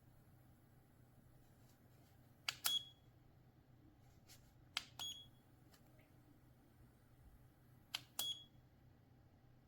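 Portable ultrasonic humidifier's control button pressed three times, each press a click followed by a short high beep, spaced about two and a half to three seconds apart.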